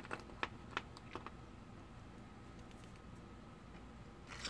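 A few light clicks and taps of small plastic model parts and a glue bottle being handled, within the first second or so. Then faint room tone, with a brief rustle near the end.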